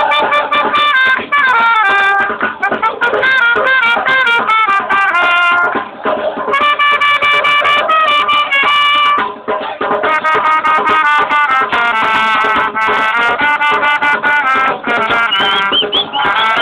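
Music with a melodic instrumental lead, the notes moving in steps and held briefly.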